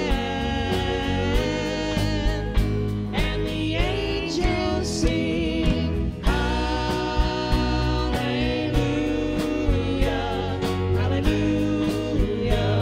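Live rock band playing an instrumental passage: drum kit keeping a steady beat under electric bass, guitars and keyboard, with a lead line that bends in pitch.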